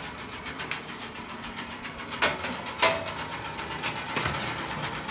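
Metal roasting pan with a wire rack holding a goose being slid into an oven, knocking against the oven rails twice about two and three seconds in, over a steady mechanical whirr.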